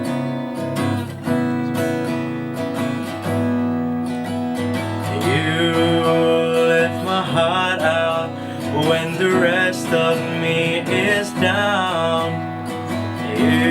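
Acoustic guitar strumming chords. About five seconds in, a voice joins with singing that carries no clear words.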